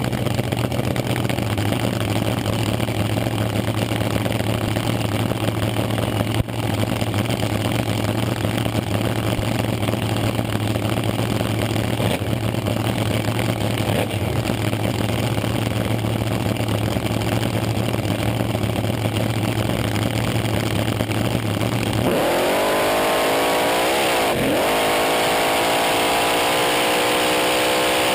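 Front-engine dragster's engine heard close up, idling loudly and steadily. Near the end it goes to full throttle on the launch, its pitch climbing, dipping briefly and climbing again as the car accelerates down the strip.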